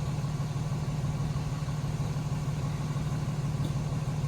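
School bus diesel engine idling steadily at the stop, a constant low hum.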